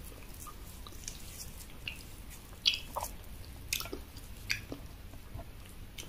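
Close-miked eating sounds: wet chewing of eba (cassava garri) and egusi soup, with fingers working the soft eba. Scattered short, sticky clicks, the sharpest a little over two and a half seconds in.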